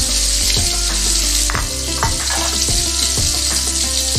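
Salted fish frying in hot oil in a wok, a steady sizzle.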